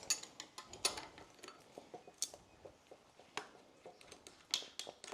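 Scattered light metallic clicks and taps of hand tools working on bolted motorcycle fittings, irregular, with a few sharper clicks spaced about a second apart.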